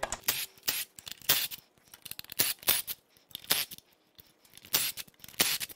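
Cordless Milwaukee FUEL power tool on a socket extension run in about a dozen short, separate bursts, spinning 10 mm bolts out of the diesel engine's intake-manifold bracket.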